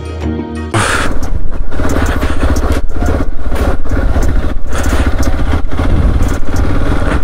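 Background music cuts off under a second in, then a Hero XPulse 200 4V's single-cylinder engine runs steadily as the motorcycle rides along, with a rapid low pulsing and a loud rushing noise over it.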